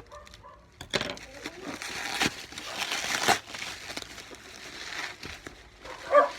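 Plastic packaging crinkling and rustling as it is handled, with a few sharp knocks and a brief louder sound near the end.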